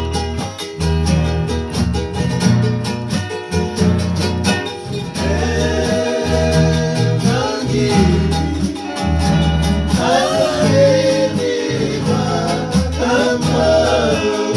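Acoustic guitars and a ukulele strummed together in a steady rhythm. A man's voice comes in singing along about five seconds in.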